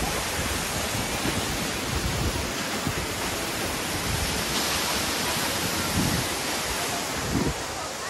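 Steady rushing noise of Surla Falls' water plunging down the cliff into the gorge, with a low rumble underneath for the first two seconds or so.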